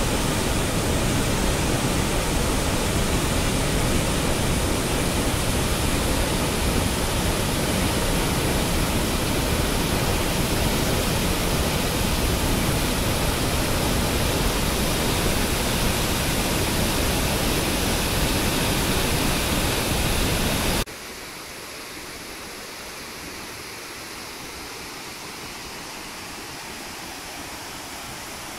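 Waterfall on the Aniene river: a loud, steady rush of falling water heard close up. About two-thirds of the way through it cuts abruptly to a quieter, steady rush from a cascade seen farther off.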